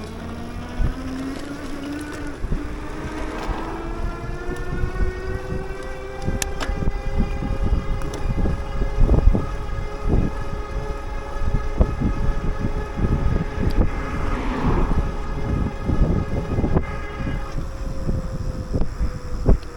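Wind buffeting the microphone of a moving bicycle, with irregular low thumps, under a mechanical whine that rises in pitch over the first few seconds, then holds steady and sags slightly near the end.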